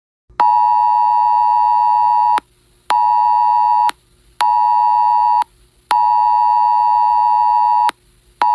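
Wireless Emergency Alert attention tone, a loud, steady two-tone buzz. It starts about half a second in and sounds in its long-short-short cadence, with half-second gaps between tones: one two-second tone, two one-second tones, then another two-second tone, and a new cycle begins near the end. It signals an imminent-threat alert, here a tornado warning.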